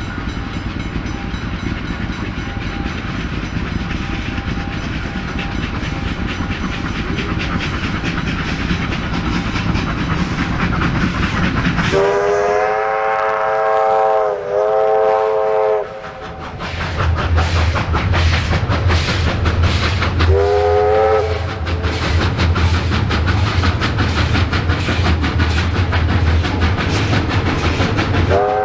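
Two Victorian Railways R class steam locomotives double-heading a passenger train at speed: a steady rapid exhaust beat and wheel rumble that grow louder as the train nears. About twelve seconds in, a long steam whistle blast that dips briefly midway, then a deep rumble as the locomotives pass, with a short whistle about twenty seconds in and another at the very end.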